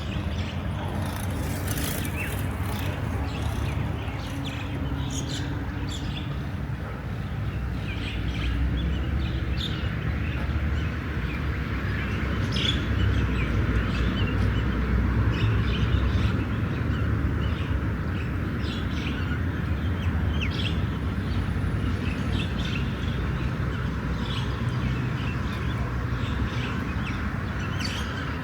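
Small birds chirping and calling on and off over a steady low rumble.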